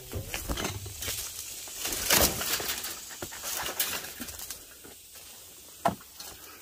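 Footsteps and rustling through brush and scattered debris, with irregular crunches and snaps, the loudest about two seconds in and a sharp one near the end.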